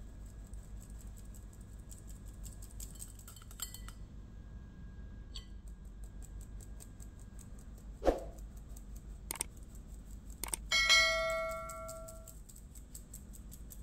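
A fine-mesh sieve is shaken over a glass bowl of flour, giving faint, rapid ticking, with one knock about 8 seconds in. About 11 seconds in, a couple of clicks are followed by a bell ding that rings for over a second, the subscribe-button sound effect, and this is the loudest sound.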